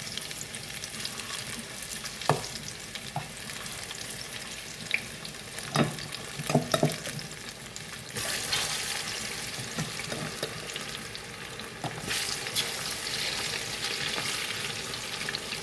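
Sliced plantain frying in hot oil: a steady sizzle that grows louder about eight seconds in and again near twelve, with a few sharp knocks in the first half.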